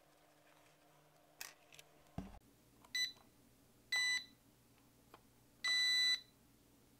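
Toy drone remote controller beeping three times, each beep longer than the last, the third the longest. A couple of small clicks and a knock come before the beeps.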